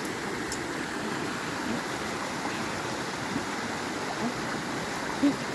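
Creek swollen by rain, rushing and flowing steadily. A few brief short pitched sounds break through, the loudest near the end.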